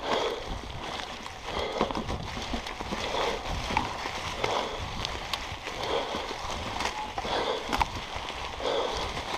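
Mountain bike rolling along a trail covered in dry fallen leaves: tyres crackling through the leaves, with clicks and rattles from the bike and a rhythmic swish about once a second.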